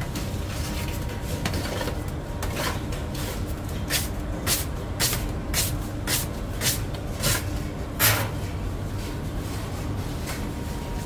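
A steady low machine rumble with a run of sharp knocks or clatters, about two a second for several seconds, the loudest one near the end of the run.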